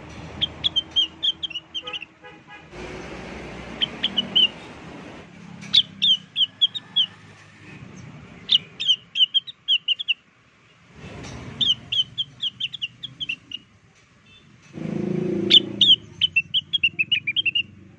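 Cucak wilis (leafbird) song played as a lure call: repeated phrases of quick, high chirps, each run of several notes followed by a short pause. Behind it is a background hiss that changes abruptly several times.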